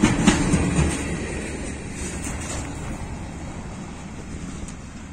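The wagons of a long diesel mine freight train rumbling and clattering over the rails as the end of the train passes, with a few sharp wheel clacks in the first second. The sound then fades steadily as the train moves away.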